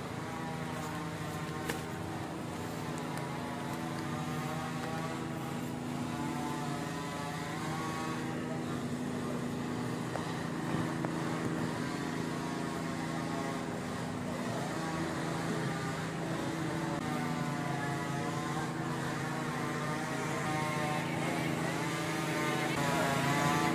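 A small engine running steadily at a constant pitch, its hum growing gradually louder.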